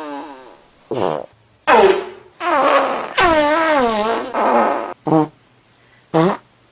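A quick series of separate fart sound effects, some short and some drawn out. The longest, in the middle, wobbles up and down in pitch.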